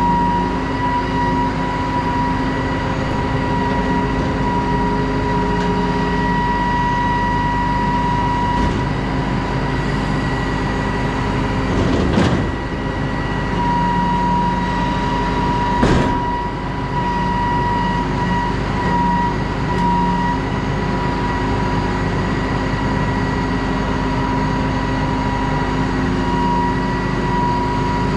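A heavy farm machine running steadily, with a constant high whine over its low engine hum. Two short knocks come about twelve seconds in and again four seconds later.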